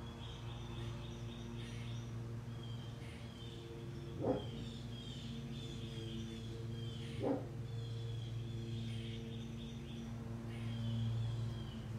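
Birds chirping over a steady low hum, while a dog barks twice, about three seconds apart, a little after a third and then past halfway through.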